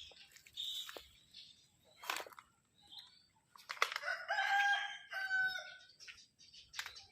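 A rooster crows once, one long call of about two seconds near the middle. Small birds chirp briefly before it.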